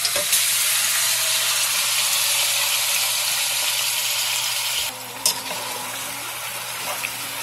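Curry-seasoned goat meat sizzling loudly in hot oil, just put into the pot. About five seconds in, the sizzle drops to a quieter level, with a single knock, and goes on as the meat is stirred with a wooden spatula.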